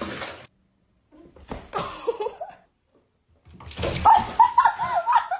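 A dog whimpering and yipping: a short whine about a second and a half in, then a quick run of high, rising-and-falling yips near the end.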